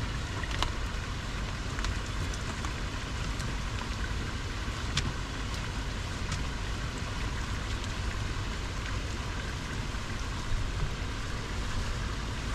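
Steady rain falling, with scattered drops ticking sharply, over a steady low rumble.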